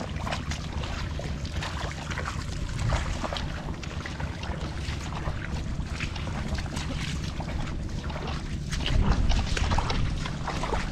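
Wind rumbling on the microphone, louder near the end, over a run of short wet squelches and splashes from bare feet in mud and shallow water.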